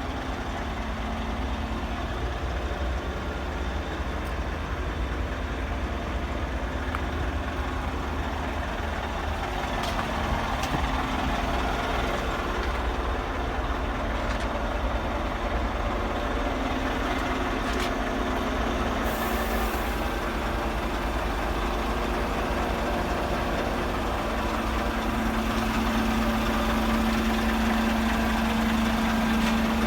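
Diesel engine of a Scania P400 refrigerated truck idling steadily, its hum growing a little louder and stronger over the last few seconds.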